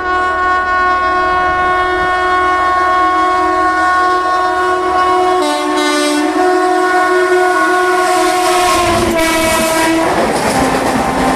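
WAP-7 electric locomotive's twin-tone horn blowing loudly and continuously for about ten seconds, dropping slightly in pitch near the end. The horn then cuts off into the rumble and clatter of the passing train.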